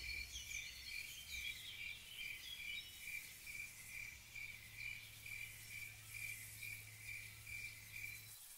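Crickets chirping in an even, steady rhythm of about two and a half chirps a second, which stop just before the end. Faint higher twittering is heard over the first few seconds, with a low hum underneath.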